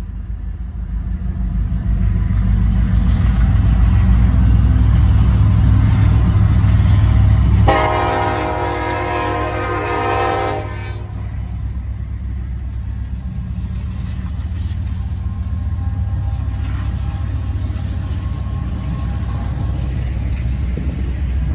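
Diesel locomotives running past, an EMD SD70ACE leading a GE ES44AC, their engine noise growing loud over the first few seconds. About eight seconds in, the lead unit's Nathan K5LLA five-chime horn sounds one long blast of about three seconds. The autorack cars then roll by with a steady, quieter rushing noise.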